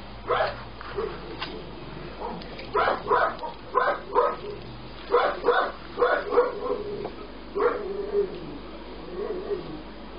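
Puppy giving short yips and barks in quick groups of two or three while play-fighting with a cat.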